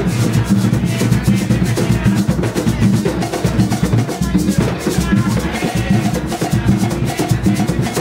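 Garifuna hand drums played together in a fast, steady rhythm, with maracas shaking over the drum strokes.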